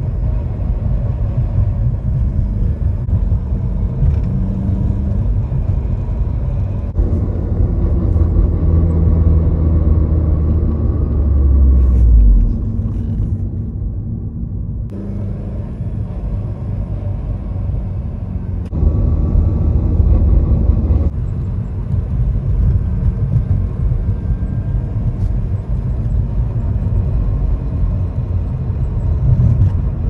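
2008 Honda Civic Si's 2.0-litre four-cylinder and manual gearbox heard from inside the cabin, driving in third gear. The drivetrain builds up under throttle and then drops away as the gas is released, twice. This is where the owner hears a grinding or rasping noise on lift-off above about 3,000 rpm, which he suspects is transmission bearing noise.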